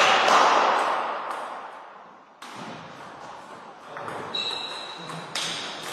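Celluloid table tennis ball tapping and bouncing in a reverberant sports hall, over a loud wash of hall noise that fades over the first two seconds. A short squeak comes a little past the middle, and a sharp click near the end as the next serve is struck.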